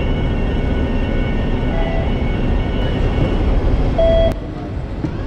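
Hong Kong tram running, a steady low rumble with a faint high whine, heard from the driver's cab. A short, bright tone sounds about four seconds in, and the rumble drops suddenly just after it.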